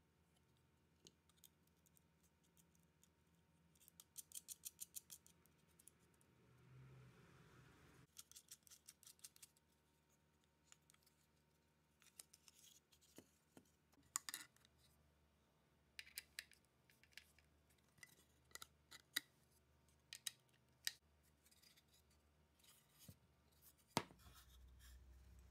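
Faint clicks, ticks and light scrapes of small metal hardware (screws and a metal bracket) being handled and fitted to a pine strip, with a quick run of about eight clicks around four to five seconds in and one louder knock near the end.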